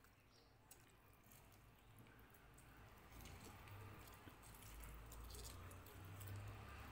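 Faint wet squishing and small clicks of fingers squeezing a lime and working rice and curry by hand.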